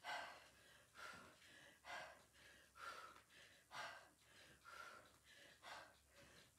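A woman's faint, breathy exhalations in an even rhythm, just under one a second, about seven in all, each breath timed to a bicycle crunch.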